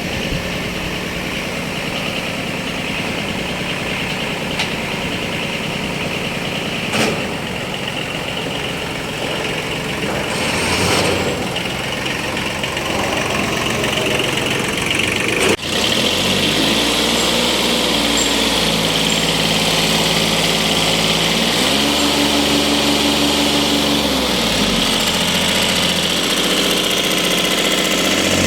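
Kubota B1500 compact tractor's small three-cylinder diesel engine running steadily. About halfway through there is a sharp click and brief dip, after which the engine speed rises, rises again, then drops back. The tractor has a noisy transmission that the mechanics later put down to the clutch disc.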